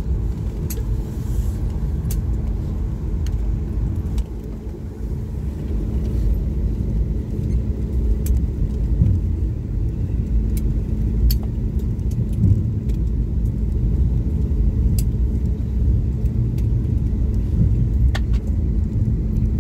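Airliner cabin noise during the ground roll after landing: a steady low rumble of engines and wheels on the concrete, with a constant hum and occasional light clicks.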